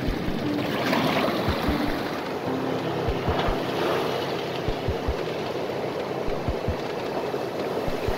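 Seawater washing and sloshing through a shallow reef rock pool, with surf breaking on the reef beyond: a steady rush of water, with scattered low thumps.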